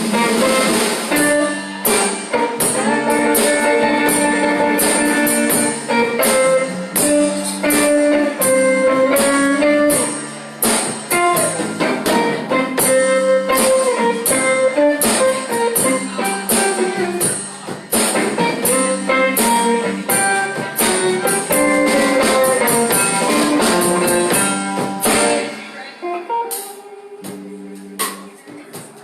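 Live band playing an instrumental passage: guitar over a steady beat of drums and tambourine. About 25 seconds in the drums drop out and a few guitar notes ring on more quietly.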